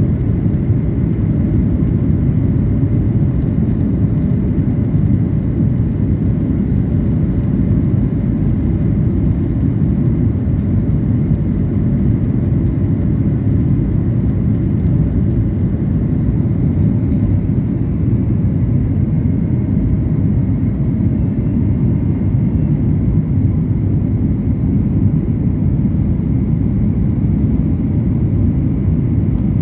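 Passenger jet cabin noise during landing: a steady, loud low rumble of engines and airflow, with a faint high tone over it.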